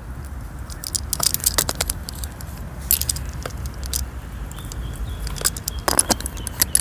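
Irregular metallic clinks and clicks of tools and parts being handled while a water pump and its hoses are fitted on a car engine.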